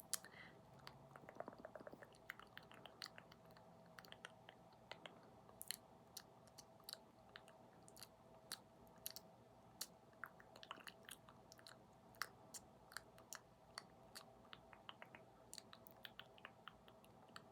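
Close-miked ASMR mouth sounds: quiet, sharp, wet clicks and smacks at an irregular pace, about two or three a second.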